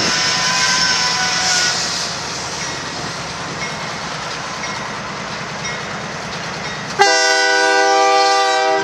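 Union Pacific diesel locomotive leading a stack train, approaching with a steady rumble. About seven seconds in its air horn sounds one loud blast of several notes at once, a chord, that starts suddenly and holds.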